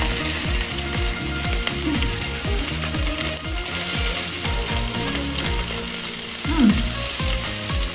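Lamb skewers sizzling on a grill, fat spitting steadily, over a regular low beat.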